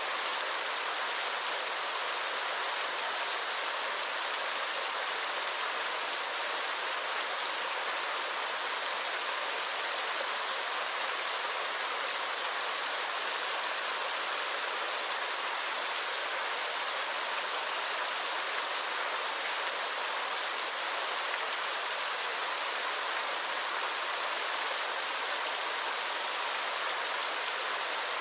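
Steady rushing water: an even, unbroken hiss with no single drops or splashes standing out.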